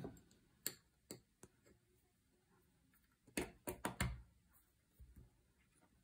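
Faint small metal clicks and taps as a tiny spring and lock parts of a Beretta EELL shotgun lock are worked into place by hand. There are a few single clicks in the first second and a half, then a quicker cluster of them about three and a half to four seconds in.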